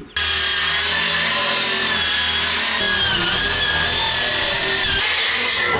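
A power tool running steadily under load, its whine dipping slightly in pitch about three seconds in. It starts and stops abruptly.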